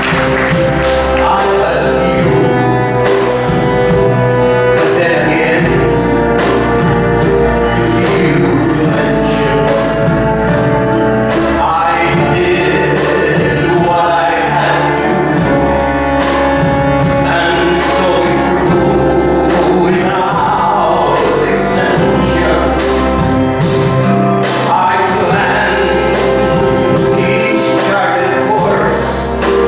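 Live band music: an alto saxophone playing the melody over keyboard, electric bass and drum kit, with a man's singing voice at times.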